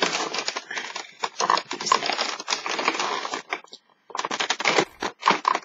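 Fingers picking and tearing at the cardboard door of an advent calendar box, a dense run of scratching, crackling and clicking, which stops briefly a little past the middle before starting again; the door is hard to get open.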